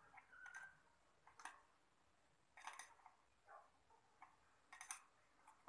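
Faint, irregular clicks and short scrapes of a small metal hand tool picking at a removed truck starter motor, a handful of light ticks spread over a few seconds.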